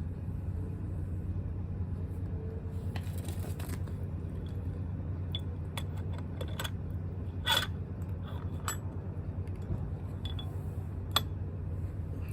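Metal tools and small parts clinking and scraping now and then, the sharpest clink about seven and a half seconds in, over a steady low mechanical hum.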